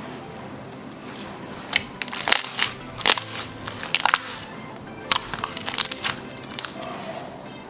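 Clear slime being squeezed and pressed in the hands, its trapped air bubbles popping in clusters of sharp crackling clicks, over soft background music.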